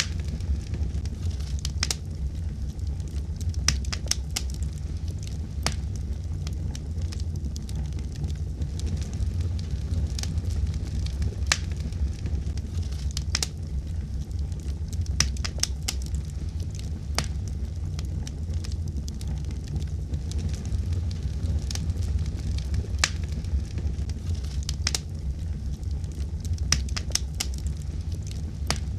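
Wood fire burning in a fireplace: a steady low rumble of flame with frequent sharp crackles and pops at irregular moments, some coming in quick clusters.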